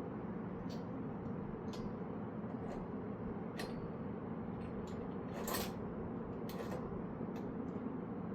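Scattered light mechanical clicks, about a dozen at irregular intervals and the sharpest a little past halfway, over a steady low background hum.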